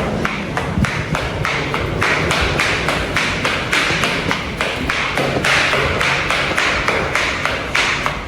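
Strong wind buffeting the microphone, with a fast, even tapping at about four taps a second.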